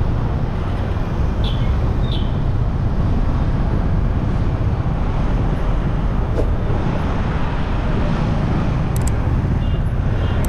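Steady wind on the microphone and road traffic noise while riding a bike along a city street.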